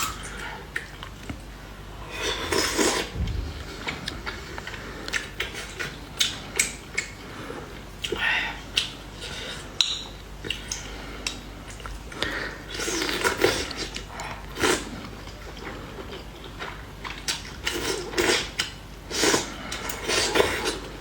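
Bowls, plates and chopsticks clinking and knocking during a meal, with several short bouts of noisy eating.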